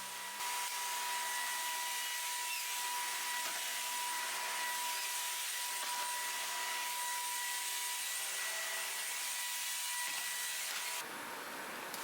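Shark cordless stick vacuum cleaner running steadily with a thin high motor whine. It comes on about half a second in and cuts off near the end.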